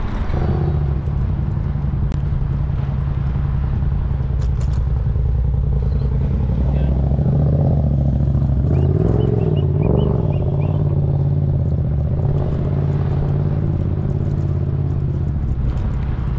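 Motor vehicle engine running as it drives, a steady low drone, with a brief rise and fall in pitch about nine to ten seconds in.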